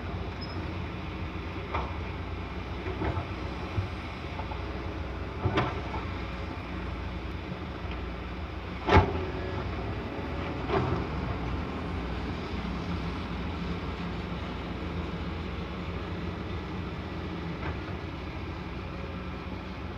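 Excavator's diesel engine running steadily at work, with a few sharp knocks from the machine, the loudest about nine seconds in.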